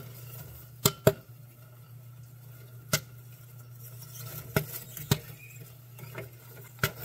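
Popcorn kernels popping sporadically in the kettle of a Princeton Popper popcorn machine: about half a dozen sharp pops, a second or more apart, over a steady low hum from the machine. The popping is slowing down as the batch nears its end.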